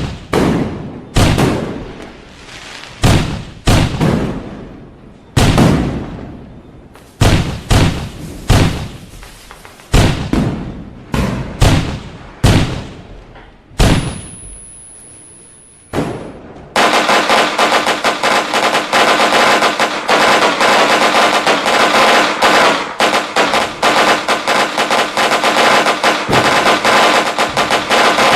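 Fireworks going off: a dozen or more separate loud bangs, each trailing off. About two-thirds of the way in they give way to a dense, continuous crackle of rapid pops, like a long string of firecrackers.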